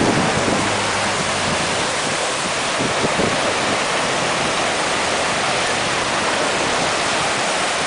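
Icy meltwater stream rushing and splashing over boulders as it pours out from under a snow cave, a steady, loud rush of water.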